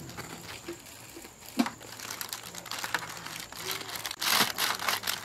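Crusty baked pumpkin bread loaf crackling and crunching as it is broken apart by hand, a loud crackle starting about four seconds in. Before that there are light handling noises and a single knock.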